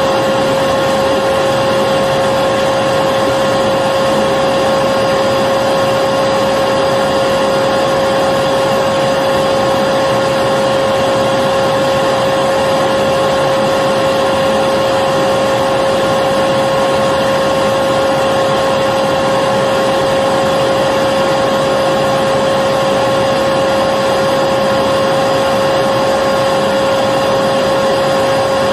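Electric vacuum cleaner running continuously, a steady unchanging motor whine with a strong single pitch over the rushing airflow noise.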